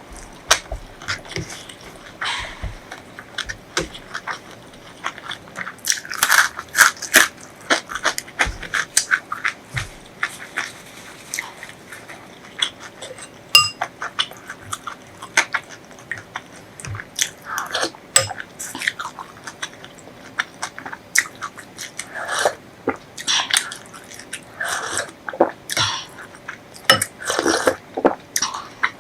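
A person chewing and biting food close to the microphone: crisp crunches mixed with wet mouth clicks, coming in clusters of bites with quieter chewing between them.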